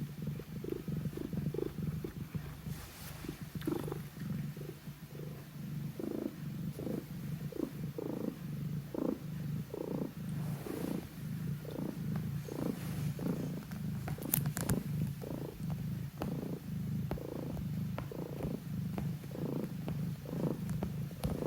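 Domestic cat purring close by, a continuous low rumble that pulses in a regular rhythm.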